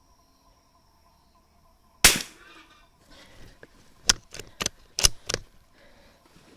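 .22 LR rifle shot about two seconds in, a single sharp crack with a short echo. A quick series of quieter sharp clicks and knocks follows about two seconds later. Faint insects chirp steadily before the shot.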